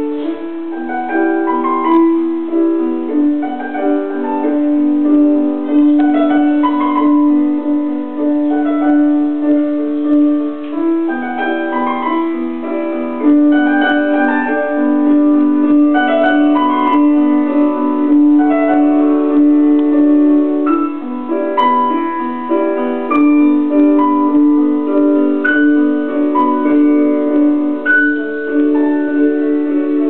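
Instrumental music: piano-like notes picking out a melody over long held low notes.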